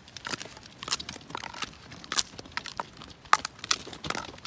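Rain falling close to the microphone, heard as a dense run of irregular crackles and clicks.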